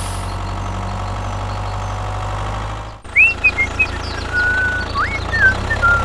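A tractor engine running steadily with a low, even hum. About three seconds in it cuts to a different engine sound, with a run of short, high squeaks and rising whistle-like tones over it.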